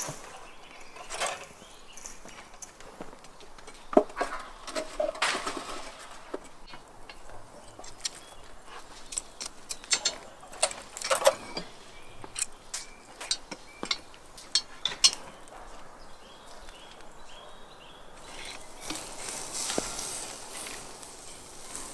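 Scattered clicks and light knocks of metal skewers of meat being handled at a charcoal grill, loudest about four seconds in and again around ten to fifteen seconds in.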